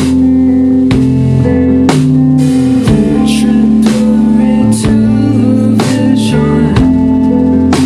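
Rock band playing a slow song: held guitar chords over drum hits about once a second.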